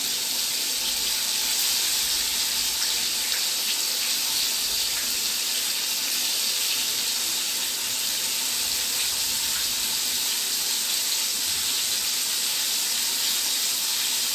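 Bombay duck fish deep-frying in hot oil in a kadai: a steady sizzle with a bright hiss.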